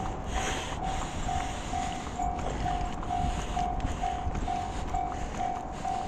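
Japanese electronic railway level-crossing alarm ringing: a single bell-like tone repeating steadily about twice a second, over a steady low rumble.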